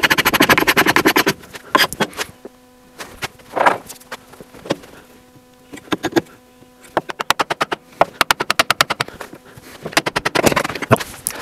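Wooden mallet striking a chisel wedged into the glue joint of a wooden toerail, to split the joint apart. Sharp knocks, some single and some in quick rattling runs.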